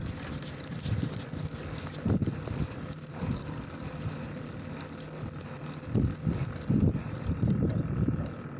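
Steady low engine hum of a party fishing boat, with wind buffeting the microphone in irregular gusts.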